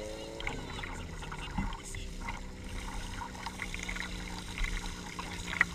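Water sloshing and trickling in an open fire-attack water tank while a suction hose draws from it, with small splashes. A portable fire pump's engine runs underneath, its pitch falling in the first half-second and then holding steady.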